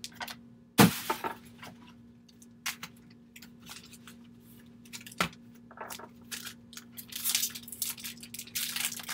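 Baseball card pack wrapper being handled and ripped open, crinkling and tearing, with loose cards shuffled in the hands. A sharp knock about a second in and a smaller one around five seconds in; the crinkling thickens in the last two seconds.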